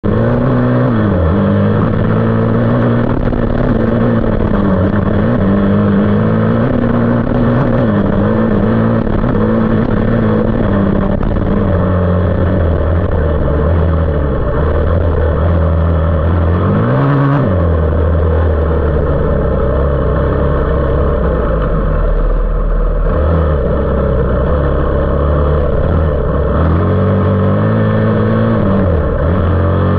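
450cc off-road engine running under throttle, heard close up from the fender. Its pitch drops and climbs again several times as the rider works up through the gears, with one sharp rev up and back down about halfway through.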